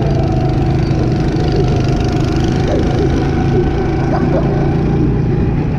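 Small gasoline engine of a go-kart running steadily at even speed, heard close up from the driver's seat.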